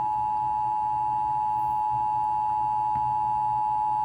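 Emergency Alert System attention signal: the steady two-tone alert tone of 853 and 960 Hz sounded together, held unbroken, that precedes an emergency message.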